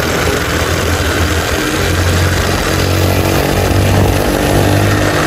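A vehicle engine running steadily under a constant hiss of road or wind noise.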